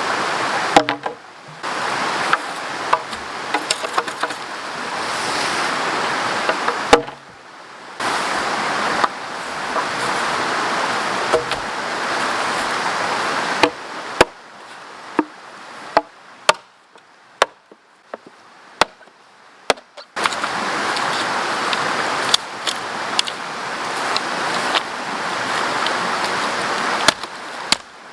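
River water rushing steadily, broken off abruptly several times, with many sharp chopping knocks scattered through; in a quieter stretch in the middle only the knocks are heard.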